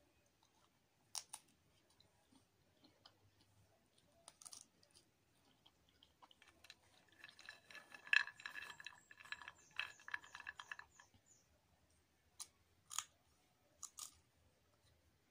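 Unshelled peanuts clattering on a ceramic plate as a hand stirs through the pile, with a ringing from the plate, for about four seconds midway. Before and after this, a few single sharp clicks from the shells.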